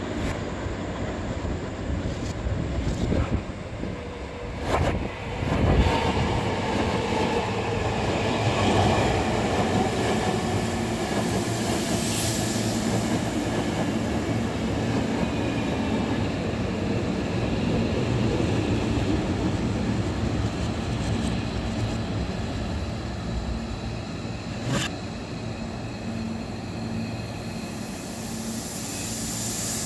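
Hankyu 8000 series electric train departing, played in reverse: wheel and rail noise with the motor whine falling in pitch as the train seems to draw in and slow to a stop. Two sharp clicks stand out, about five seconds in and again near the end.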